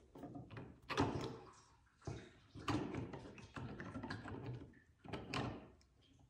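Plastic pump housing and fittings being handled and fitted together by hand: several knocks and clicks, the sharpest about a second in, with rubbing and rustling between.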